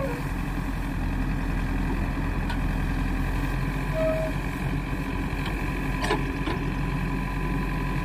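Diesel engine of a JCB 3DX backhoe loader running steadily while the backhoe arm swings and digs. Two short knocks come about six seconds in.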